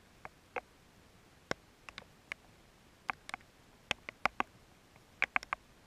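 Scattered raindrops ticking on the camera, irregular sharp taps a few a second with a couple of quick clusters.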